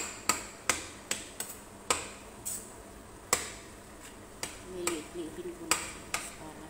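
A spoon knocking against the sides of a stainless steel stockpot while stirring ground meat: irregular sharp knocks, about eleven of them, spaced from a third of a second to a second apart.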